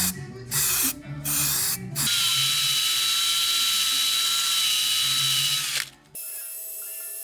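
A handheld power tool whirring in two short bursts, then running steadily for about four seconds with a high whine before stopping abruptly.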